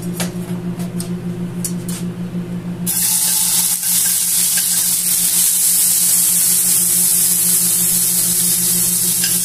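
Chopped tomato and egg frying in a hot pan for egg with tomato: after a few light clicks, a loud steady sizzle starts suddenly about three seconds in and keeps going.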